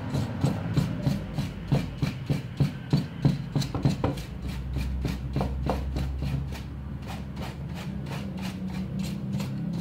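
A small brush scrubbing a TV circuit board with cleaner, in quick rubbing strokes several times a second. The strokes die down after about four seconds, leaving a low steady hum.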